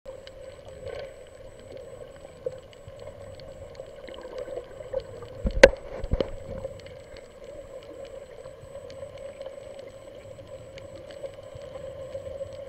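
Underwater sound picked up by a camera in a waterproof housing: a steady hum with scattered faint clicks, and a sharp knock a little under halfway through, followed by a weaker one.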